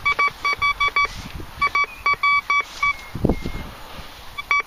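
Thracian metal detector sounding runs of rapid, short beeps as its coil passes over the dug hole and spoil heap, signalling a metal target still in the ground. A single dull thump comes a little past the middle.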